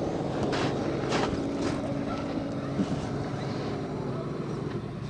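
RC crawler truck's motor and gearbox whining steadily as it drives, with a few sharp clicks in the first two seconds.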